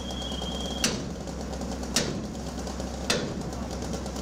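A firefighter's hand tool striking metal three times, about a second apart, over a steady low engine drone.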